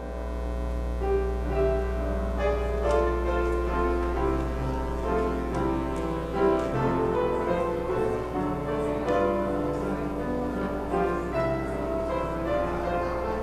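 Instrumental music, a run of separate pitched notes, over a steady low hum.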